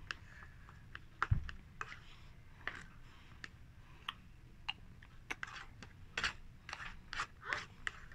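Plastic spoon and fork clicking and scraping against cardboard food boxes while eating: an uneven scatter of short clicks and taps, a little busier near the end. A low bump comes about a second in.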